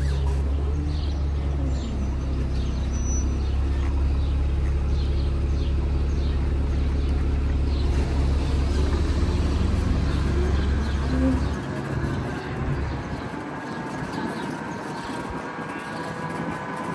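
Wind and road rumble from an electric motorcycle riding through city traffic. The heavy low rumble falls away about two-thirds of the way through, leaving quieter traffic sound. A steady whine of several tones comes in near the end.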